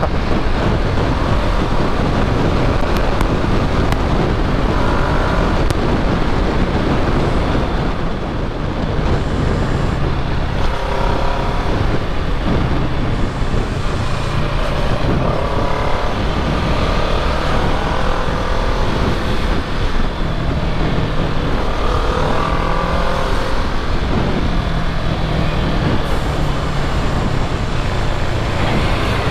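Kawasaki Z650's parallel-twin engine and exhaust under way, the engine note rising and falling repeatedly as the rider accelerates and shifts, over steady wind and road noise.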